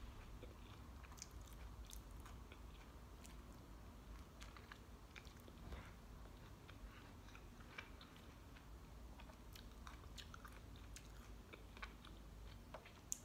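A person chewing, with faint scattered crunches and mouth clicks as she works through a piece of food eaten with its tough peel still on.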